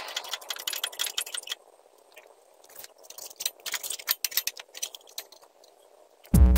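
Light metallic clinking and rattling as a motorcycle's spoked rear wheel, with its sprocket, is lifted and slid into place, in two clusters of quick clicks. Electronic music with a steady beat starts loudly just before the end.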